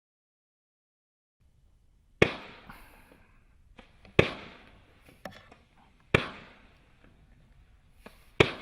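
Consumer fireworks cake firing shots, one sharp bang about every two seconds, each dying away over about a second, with smaller cracks in between. It starts after a second or so of silence.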